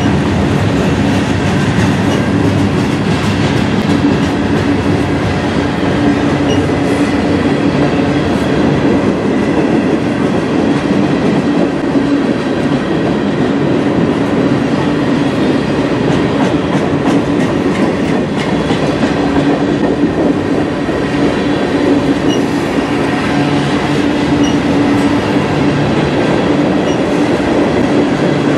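Freight cars of a CN freight train rolling past on the near track: a loud, steady rumble of steel wheels on rail.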